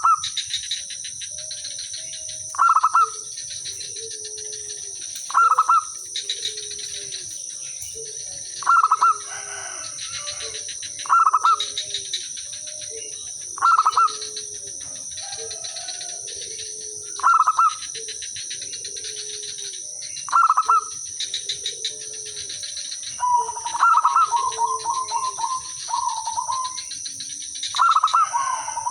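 Zebra dove cooing: a loud call repeated about every three seconds, with a quick run of short staccato notes about three quarters of the way through, and fainter, lower calls in between.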